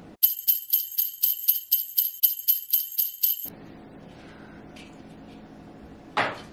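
Sleigh bells shaken in a steady rhythm, about four shakes a second for about three seconds, laid in as an added sound effect over a silenced background. Then the room tone returns, with one short sharp sound near the end.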